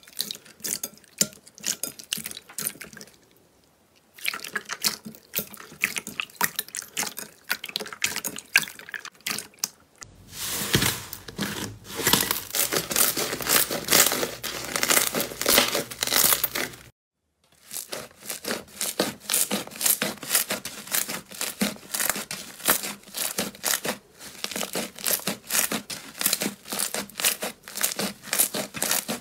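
Hands squishing, stretching and pressing slime, a dense sticky crackling and popping with wet squelches. It drops out briefly a few times as one batch of slime gives way to the next.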